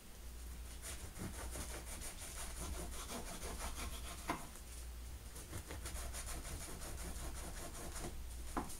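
Knife sawing back and forth through a loaf of bread, in many short, repeated strokes.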